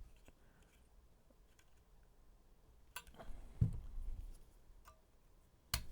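A few sharp clicks and a light knock of small hard parts and tools being handled while a lithium-ion battery pack is worked on. The loudest click comes near the end.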